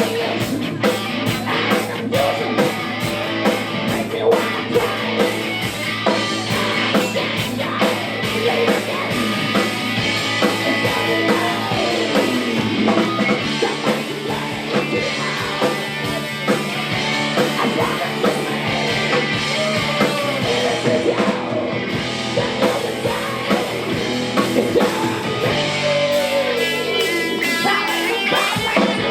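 Rock music with guitar, played continuously.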